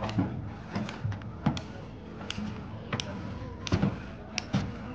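Footsteps of people climbing a staircase of plank steps: a string of irregular thuds and taps.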